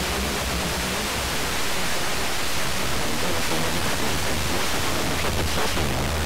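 Wideband FM radio hiss: an Airspy HF+ receiver in WFM mode demodulating an empty, or nearly empty, channel at 97.3 MHz, giving a steady rushing static.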